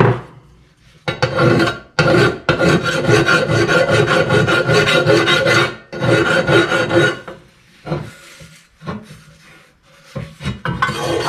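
A hand file is being stroked back and forth across a small formed sheet-metal shock-mount cover, scraping the metal down, with a ringing tone from the thin panel under the strokes. There is a short burst about a second in, then a long run of strokes, a pause, weaker scrapes, and strokes again near the end.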